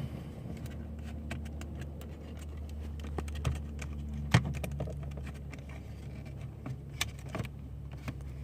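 Scattered small plastic clicks and rattles from a car door's interior trim being pried and popped loose, with a sharper snap about four seconds in and another near seven seconds.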